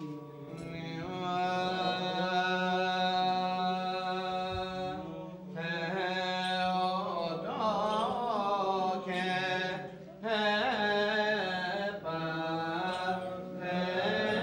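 Greek Orthodox Byzantine chant. A voice sings an ornamented melody with sliding pitch turns over a steady held low drone note (ison). The melody breaks briefly about five and ten seconds in.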